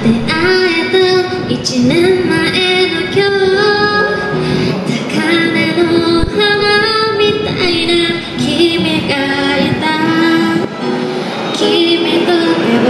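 Young woman singing a pop ballad into a corded handheld microphone, her voice amplified, in sustained phrases that rise and fall in pitch.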